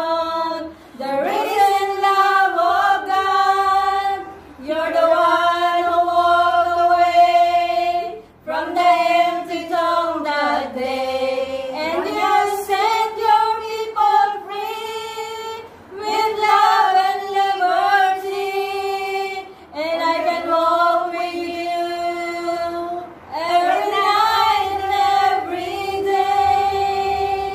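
A group of five women singing a song together, holding long sustained notes in phrases of a few seconds, with short breaks for breath between them.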